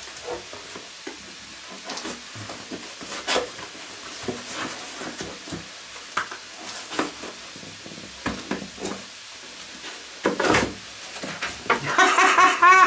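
Vegetables sizzling in a Dutch oven, under rustling, clicks and knocks from a cardboard parcel being unpacked by hand. A man's voice comes in near the end.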